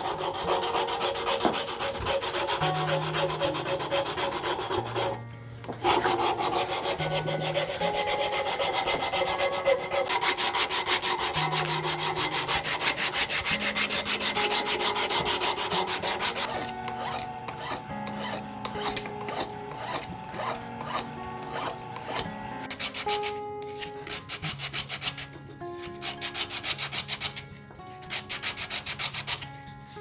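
Sandpaper rubbing on a wooden plane knob in rapid back-and-forth strokes, with a short break about five seconds in; from about halfway on the strokes are lighter and more spaced out. Soft background music with held notes plays underneath.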